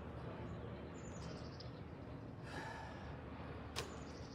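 Outdoor ambience: a steady low rumble with faint bird chirps, a breath about two and a half seconds in, and a single sharp click near the end.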